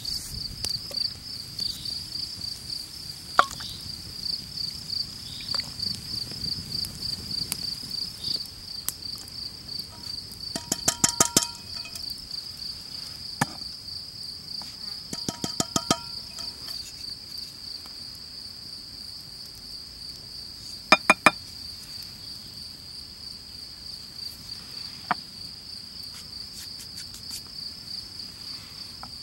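Insects chirping in a high, fast pulsing trill that runs on without a break. Three short bursts of rapid clicking cut in, about a third of the way in, around the middle, and about two-thirds in.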